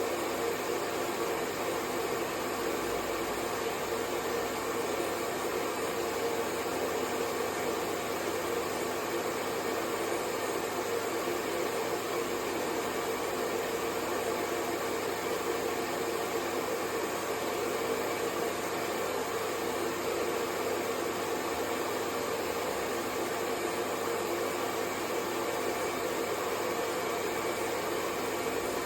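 Hair dryer running steadily: a continuous, even whooshing hum of the motor and fan with no change in pitch or level.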